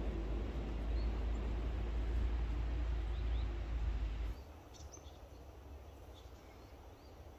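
Outdoor forest ambience: a low rumbling hiss that stops abruptly about four seconds in, leaving quieter background with short, faint bird chirps.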